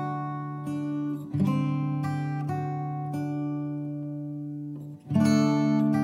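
Background music: acoustic guitar chords ringing on, with new chords struck about a second in and again about five seconds in.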